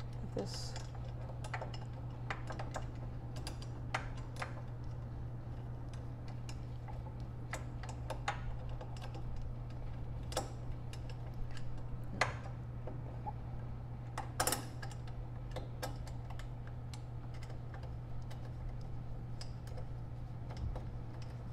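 Irregular light clicks and taps of a hand tool and metal parts as a passenger-seat mounting bracket is held in place and a bolt is worked into it until it catches. A few louder knocks come partway through, over a steady low hum.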